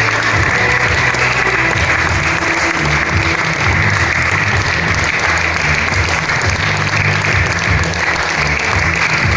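Spectator crowd clapping steadily over loud background music with a changing bass line.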